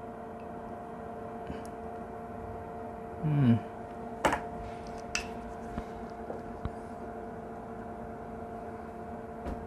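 Small sharp clicks and taps of hand soldering work on a Hirose connector's pins, the loudest about four seconds in, over a steady electrical hum; a short murmur of voice about three seconds in.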